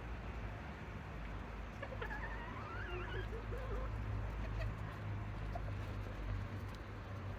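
Serama bantam chicken giving one short, wavering call about two seconds in, over a steady low background rumble.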